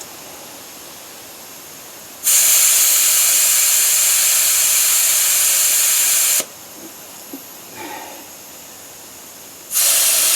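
Air hissing out of a freshly mounted lawn tractor tire's valve stem, letting its pressure down a little. There are two loud bursts: one of about four seconds, and a shorter one near the end.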